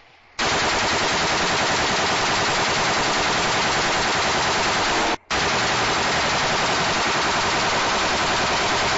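Rapid fire from a semi-automatic rifle with a bump stock: a long string of shots, erratic, with a brief break about five seconds in before the firing resumes.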